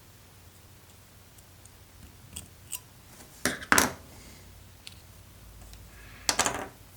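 Light clicks and clacks of small tools and parts being handled on a bench while a key fob battery is taken out for testing. There are a few faint ticks, two sharper clacks about three and a half seconds in, and a quick run of clicks near the end.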